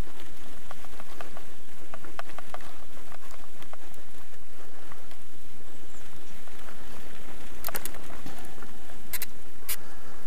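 Bicycle rolling over a rutted sandy dirt road: steady tyre noise on sand and grit, with scattered clicks and rattles from the bike, sharper and more frequent near the end.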